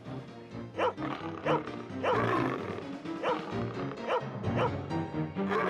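A dog barking repeatedly, about seven sharp barks, over background music.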